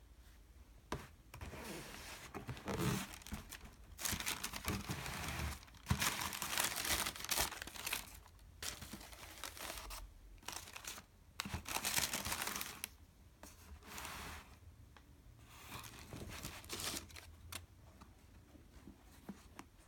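Tissue paper rustling and crinkling in irregular bursts as it is unfolded from around a pair of trainers in a cardboard shoebox, with a few sharp knocks of the box among them. It goes quiet near the end as the shoe is lifted out.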